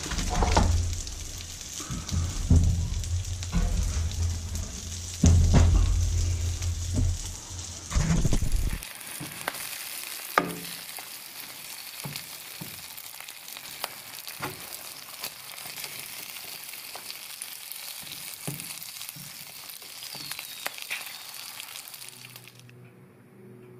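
Snow peas sizzling in a frying pan, turned with metal tongs that click against the pan. For the first several seconds, louder thumps and low rumble of handling cover it.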